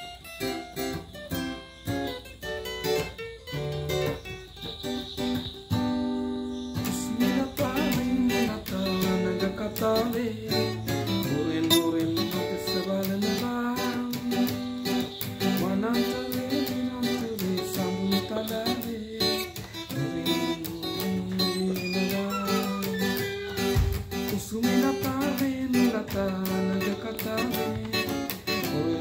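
Acoustic guitar playing a song, picked note by note at first. From about seven seconds in a voice comes in singing the melody over the guitar.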